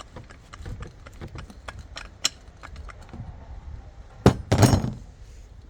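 Ratchet wrench clicking in quick short strokes as the fork top nut is tightened, then a loud metallic clank and clatter about four and a half seconds in.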